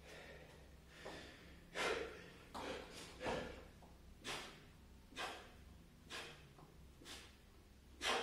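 A man breathing hard from the exertion of repeated burpees and push-ups, with short, forceful exhalations about once a second. The loudest breaths come about two seconds in and near the end.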